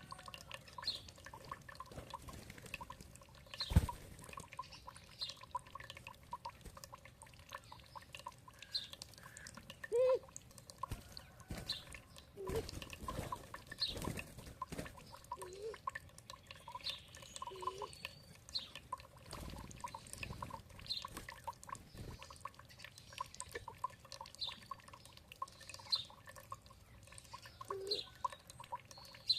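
Water dripping and trickling, with scattered plopping drops, and songbirds giving short high chirps every second or so.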